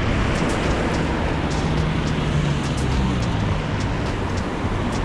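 Road traffic on a rain-wet street: cars passing with steady tyre noise on the wet asphalt and a low engine hum.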